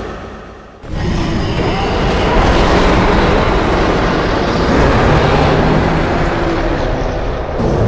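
A loud, noisy rumbling sound effect that cuts in sharply about a second in, after an earlier sound fades away, and runs steadily for about six and a half seconds.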